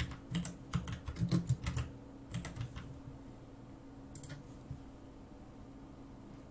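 Typing on a computer keyboard: a quick, uneven run of keystrokes over the first three seconds. A mouse click follows just after four seconds in, with a faint steady hum underneath.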